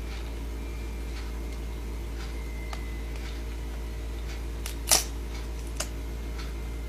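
Faint, irregular small clicks and ticks from a crab's claws and shell working at a snack, with one sharp, louder click about five seconds in and a smaller one shortly after, over a steady low electrical hum.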